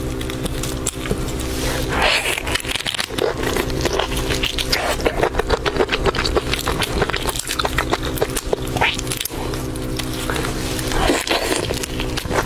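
Gloved hands cracking and peeling a large marinated prawn: crisp crackles of shell breaking and wet squelching of the sauce-soaked flesh, with biting into the meat near the end.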